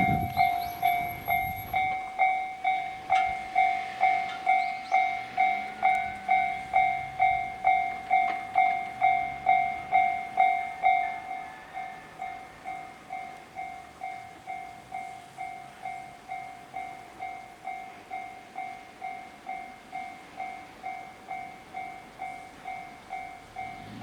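Japanese railway level-crossing alarm (JR standard sound) ringing in a steady two-tone ding-ding, about two strokes a second. About halfway through it drops markedly in volume and goes on ringing more quietly.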